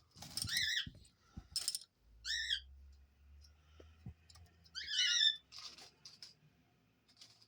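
Three short, high, wavering bird calls, roughly two seconds apart, with a few soft clicks between them.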